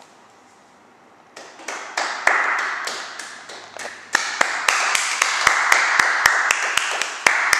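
A small audience applauding. The clapping starts about a second and a half in and quickly grows, with many sharp individual claps standing out.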